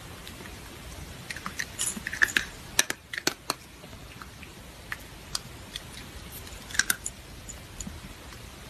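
A cat crunching dry kibble taken piece by piece from a hand: a scatter of small crisp crunches, busiest about two to three seconds in and again near seven seconds, over a faint steady hiss.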